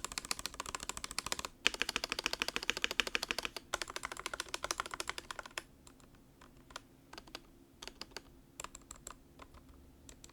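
Stabilized keys on an Akko ACR 75 acrylic mechanical keyboard, its stock pre-lubed plate-mount stabilizers, pressed in rapid runs of clacks, then slower single presses in the second half. The stabilizers are loose on the plate and have minimal, inconsistent factory lube.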